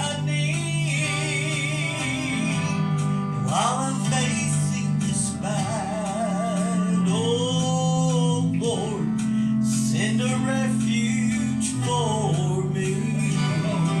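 Gospel song sung with vibrato over acoustic guitar and a steady held bass.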